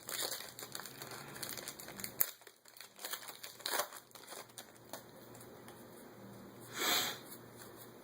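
Foil booster-pack wrapper crinkling, with crackles and clicks from cards being handled. There is one short, louder crinkle or rip about seven seconds in.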